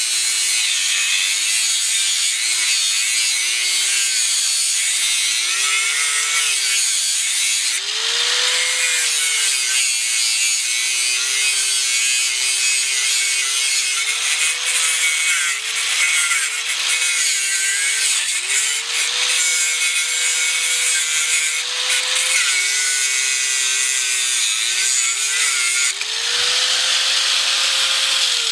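Drillmaster 4½-inch angle grinder cutting through a piece of metal, with a loud hiss of grinding throughout. The motor's whine repeatedly sags and recovers as the disc is pressed into the cut and eased off. Near the end it rises briefly, then starts to fall as the grinder is let go and spins down.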